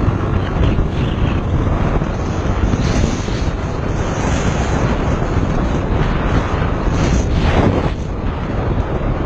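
Motorcycle engine running at riding speed, with heavy wind noise buffeting the microphone.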